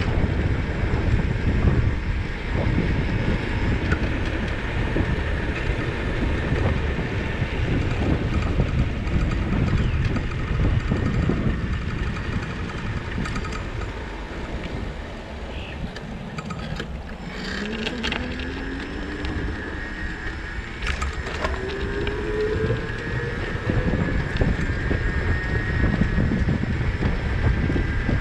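Wind buffeting the microphone of a camera on a moving bicycle, a heavy low rumble that eases for a few seconds about halfway through. As it eases, a steadily rising whine comes in for several seconds.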